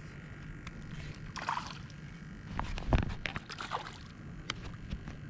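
Water sloshing around a small fishing boat, with scattered clicks and short splashes and one sharp knock about three seconds in.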